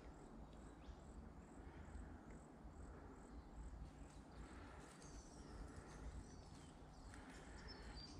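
Near silence: quiet outdoor creekside ambience with a low rumble. A faint high chirp repeats about twice a second through the first half, and thin high whistles come in the second half.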